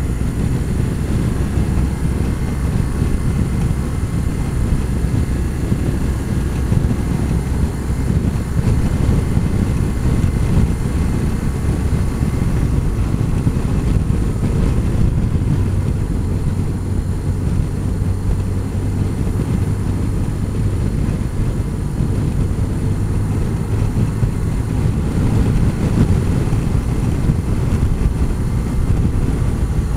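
Motorcycle cruising at steady road speed, heard from a camera mounted on the bike: a constant low rumble of engine, wind and road noise with no change in pace.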